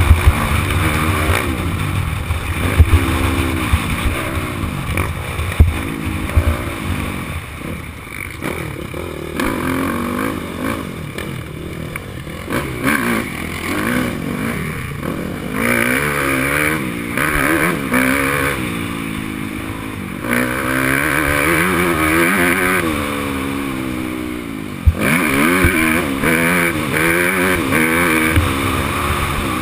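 Yamaha YZ250F single-cylinder four-stroke motocross engine revving hard, its pitch climbing and dropping over and over as the bike is ridden round a dirt track. A few sharp knocks come through the bike and the rough ground.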